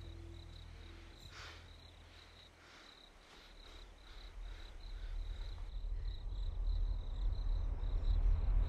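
Cricket chirping faintly in a steady high pulse, about three chirps a second. A low drone swells up over the last few seconds and grows steadily louder.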